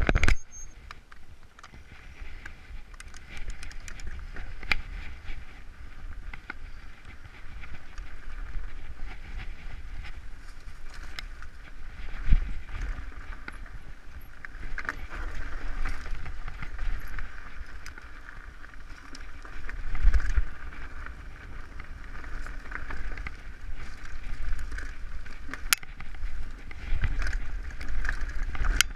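Mountain bike riding fast down a dirt trail: a continuous rumble of tyres on dirt and wind with the bike rattling, broken by a few sharp knocks over bumps.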